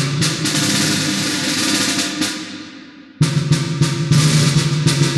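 Synthesized snare drum from a physics-based simulation: a quick run of strikes, with the snare wires buzzing against the membrane over the drum's low tone. It dies away about two seconds in and starts again with a fresh burst about three seconds in.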